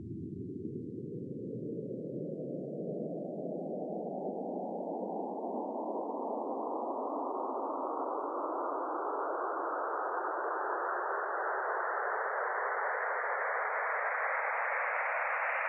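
Synthesized wind: a band of hissing filtered noise that sweeps slowly and steadily upward in pitch while growing gradually louder.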